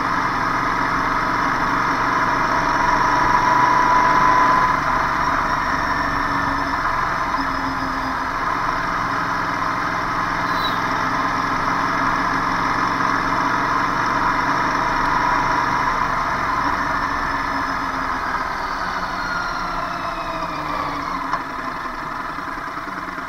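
Engines of motorcycles and other vehicles running and idling in congested road traffic, a continuous mix. A steady tone sounds for about two seconds a few seconds in.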